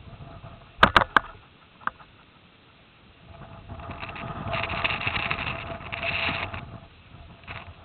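Three sharp snaps in quick succession about a second in, airsoft gun shots, followed by about three seconds of rustling and scuffing from a player moving on foot.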